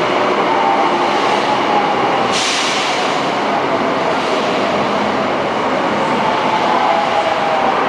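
Subway train running along the platform: a steady, loud rush of wheels and cars on the rails, with a faint tone that slides in pitch. A hiss comes up suddenly about two and a half seconds in.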